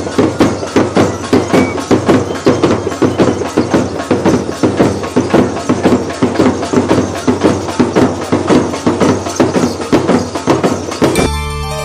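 Traditional drums played fast and steadily, a dense run of sharp strokes on a driving beat. Near the end the drumming cuts off suddenly and recorded music with held tones takes over.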